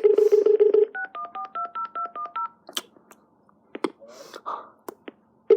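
Uniden XDECT cordless phone: the dial tone buzzes for under a second and cuts off, then a quick run of about ten touch-tone (DTMF) keypad beeps as a number is dialled, followed by a few clicks.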